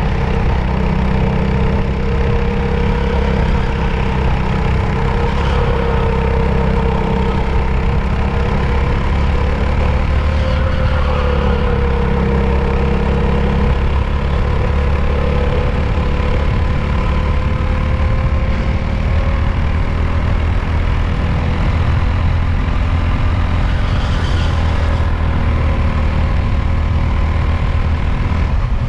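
Mini Indy race car's engine running steadily at speed, heard from on board over a heavy low rumble. Its pitch drifts gently up and down through the corners.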